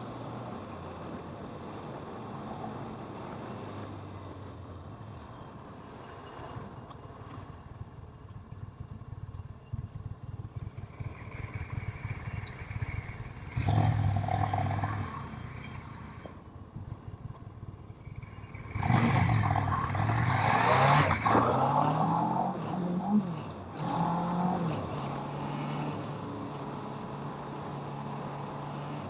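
Kawasaki motorcycle engine running under way, with wind noise, in sped-up footage. About two-thirds of the way in it gets louder and the engine pitch climbs, drops and climbs again as it accelerates through the gears.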